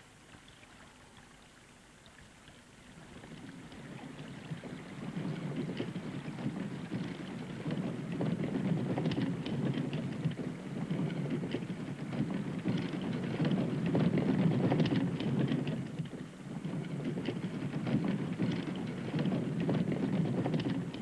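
Wooden cart wheels rolling over a rough path with a rumbling clatter, growing louder as the cart approaches.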